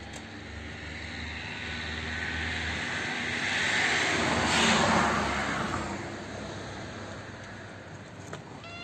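A vehicle passing by: its engine and road noise swell to the loudest point about four and a half seconds in, then fade away. A cat starts to meow right at the end.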